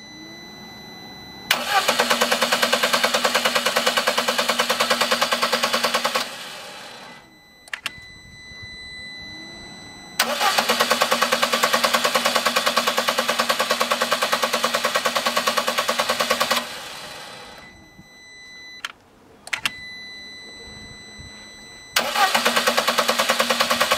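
Lada Priora engine cranked on the starter in three bursts of several seconds each, with a fast even pulsing, but not firing because the crankshaft position sensor is disconnected. The engine is being spun over to pump fresh oil round and build oil pressure before it is started.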